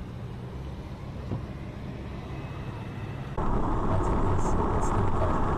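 Steady road and engine rumble heard inside a moving car. About three and a half seconds in it cuts suddenly to louder, hissier road noise from a car travelling at highway speed.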